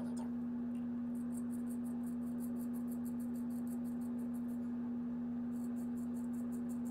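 Straight razor scraping stubble on the neck in quick short strokes, a crisp rasp about five times a second that pauses for about a second after four seconds, over a loud steady low hum.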